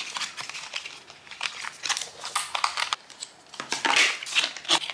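Paper and cardboard packaging of an Apple MagSafe charger crinkling and rustling as it is unwrapped and its box flaps pulled open by hand, with scattered small taps and scrapes. The rustling is loudest about four seconds in.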